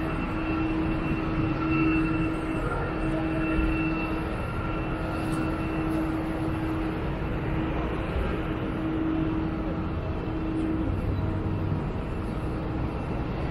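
Jet airliner engines running, a steady whine over a low rumble, the whine fading about eleven seconds in.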